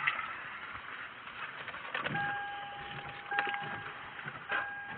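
Rain on a car, heard from inside the cabin as a steady hiss. From about two seconds in, an electronic beep tone sounds in several short stretches, each starting with a click.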